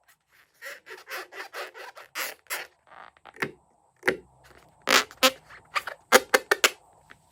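Crunchy slime being worked by hand: a run of short crackling rasps, then sharper, louder clicks and snaps in the second half.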